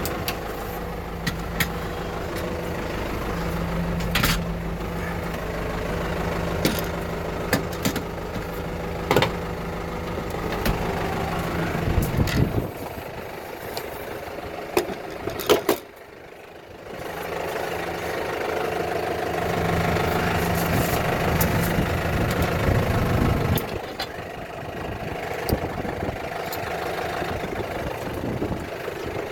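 An engine running steadily, with sharp clicks and knocks now and then. About sixteen seconds in the sound drops away for a moment, then the engine is heard again.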